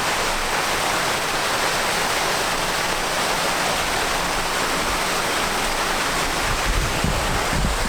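Waterfall rushing steadily, a constant full hiss of falling water. A few low thumps near the end.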